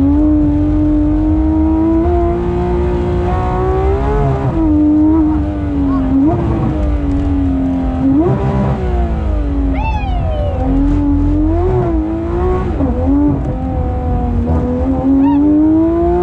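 Porsche 991.2 GT3 RS's naturally aspirated flat-six running hard on track. The pitch climbs through the revs and drops sharply at each gear change, with brief rev spikes on downshifts.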